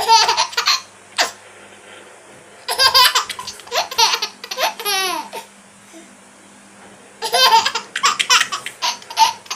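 Baby laughing in high-pitched bouts: a short burst at the start, a longer run of laughs about three seconds in, and another bout near the end.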